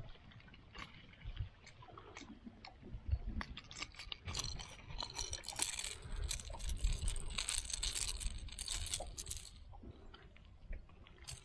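Fishing pliers and a lure's hooks clinking and rattling as the hooks are worked out of a golden perch's mouth in a landing net: a run of sharp metallic clicks, busiest in the middle.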